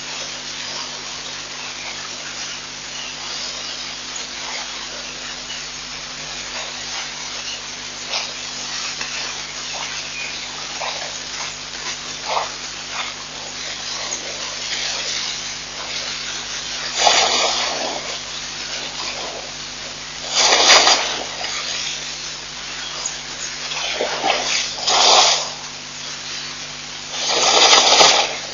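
Outdoor webcam feed with a steady hiss and a low electrical hum. In the second half, four or five short, louder gushing noises come and go, each under two seconds.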